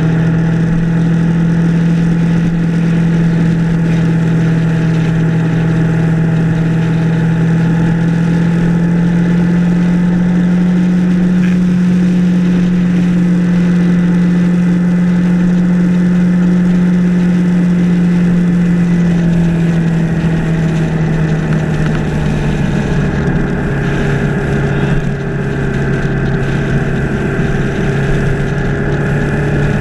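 Yamaha R3's parallel-twin engine running at a steady cruise, heard from the handlebars with wind noise. About two-thirds through the engine note drops, then slowly climbs again.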